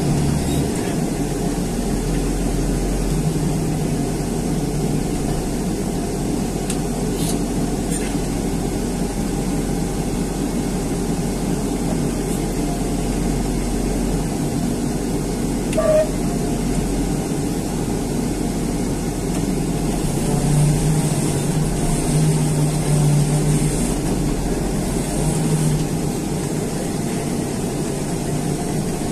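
John Deere front loader's diesel engine running steadily, heard from inside the cab, swelling briefly a few times in the last third.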